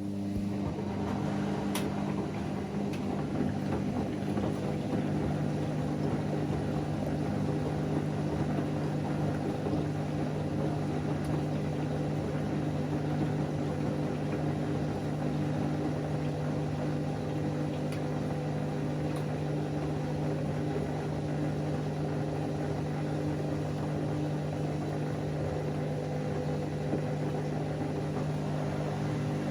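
Whirlpool AWM 864 front-loading washing machine running with a steady hum, coming on suddenly.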